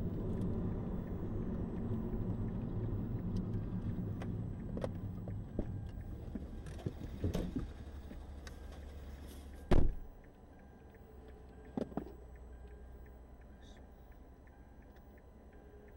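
Road and engine noise inside a car braking to a stop, fading away over the first ten seconds. A few clicks follow, then a sharp knock about ten seconds in, the loudest sound, and two more knocks a couple of seconds later.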